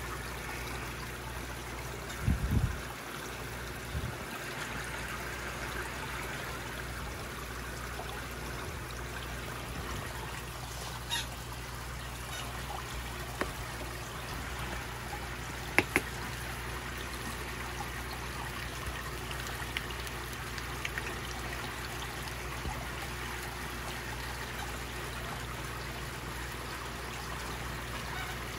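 Steady trickle of running water, with a low steady hum beneath it. There are a few low thumps about two seconds in, and a couple of sharp clicks near the middle.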